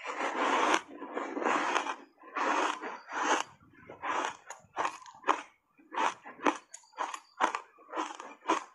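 Dry, crunchy block ice coated in matcha powder being chewed: a run of sharp crunches, about two a second at first and coming quicker, about three a second, in the second half.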